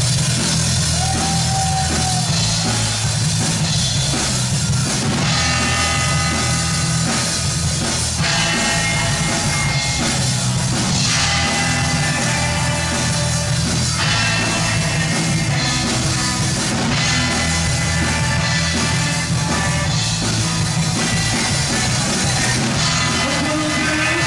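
Live rock band playing an indie rock song: electric guitars, bass and drum kit, loud and steady throughout.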